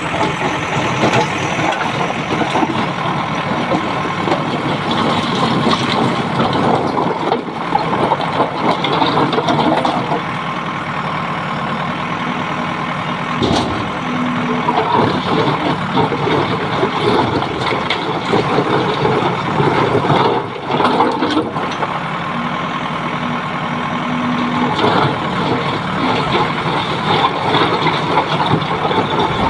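Diesel engines of a JCB 3DX backhoe loader and a tipper truck running steadily, with rocks scraping and knocking as the backhoe's bucket pulls them from the tipper's raised bed.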